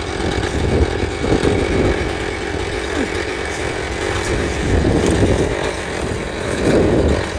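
Husqvarna two-stroke chainsaw engine running steadily.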